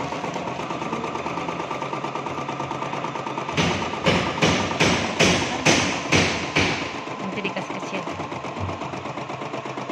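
Embroidery machine stitching with a steady, rapid needle clatter. From about three and a half to six and a half seconds in, a run of louder knocks comes about twice a second over the stitching.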